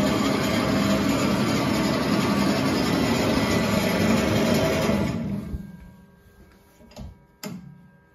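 Boxford Model A/AUD lathe running with a steady machine hum from its motor and gearing, then spinning down to a stop about five seconds in after being switched off. Two sharp clunks follow near the end as a lever on the machine is moved.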